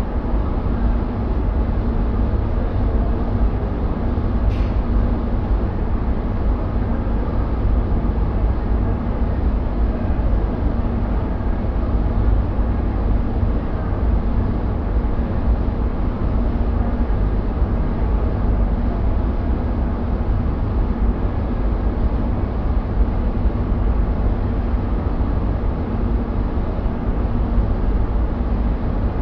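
Powder coating booth at work: a steady rumble from the booth's extraction fan and the spray gun's compressed air, with a low hum underneath. A single short click about four and a half seconds in.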